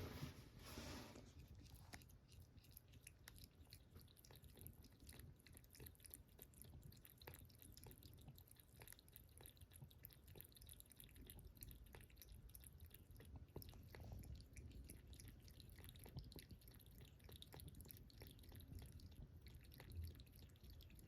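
A cat lapping water from a bowl: a faint, quick, steady run of small tongue-laps. There is a brief louder noise right at the start.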